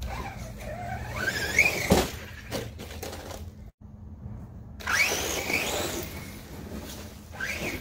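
Redcat Landslide XTE RC truck's brushless electric motor and drivetrain whining, rising in pitch as the truck accelerates, twice. A couple of sharp knocks about two seconds in.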